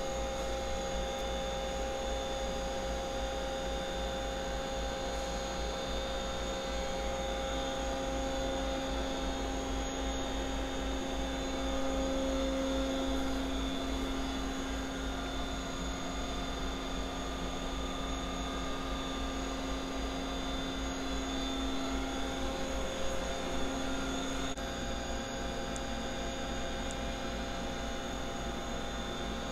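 Doosan Puma 300C CNC turning center running a program: a steady machine hum with several whining tones. A lower whine joins about a quarter of the way in and stops abruptly about five seconds before the end.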